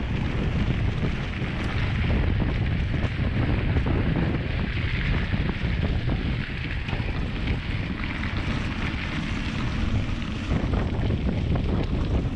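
Wind buffeting the microphone of a bike-mounted action camera, over a steady low rumble of mountain bike tyres rolling on a gravel road, with small ticks and rattles.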